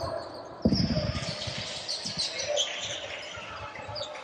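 A basketball bouncing on a hardwood gym floor. The first bounce is loud and sudden, about half a second in, and is followed by more bounces. Sneakers squeak on the court throughout.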